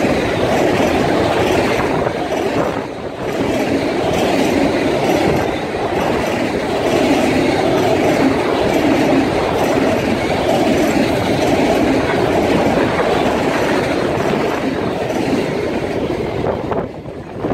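Freight train cars rolling past close by: a steady, loud rumble and clatter of steel wheels on the rails.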